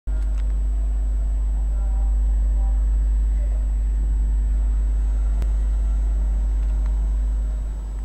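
Steady low rumble of street traffic.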